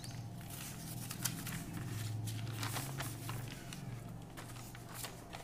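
Notebook paper pages being lifted and turned, rustling and crinkling in a run of short scratchy sounds, over a low steady hum.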